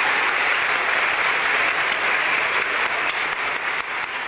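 Audience applauding steadily, the applause beginning to thin near the end.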